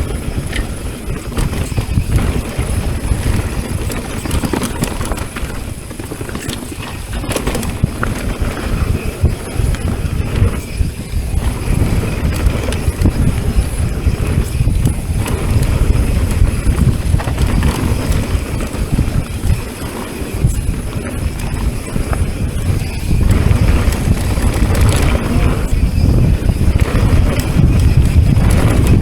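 Mountain bike riding down a dirt trail: tyres rolling over dirt and rocks with a steady rumble and the bike rattling and knocking over bumps, getting louder in the last several seconds.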